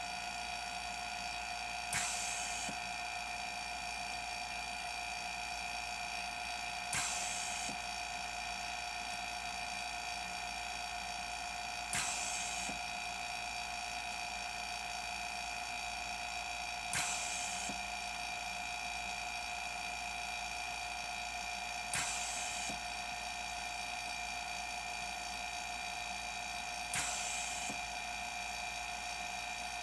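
A DIY ventilator running through its breath cycle: a steady whine throughout, and every five seconds a click followed by a short rush of air, six times in all. This is one breath delivered every five seconds, about twelve breaths a minute.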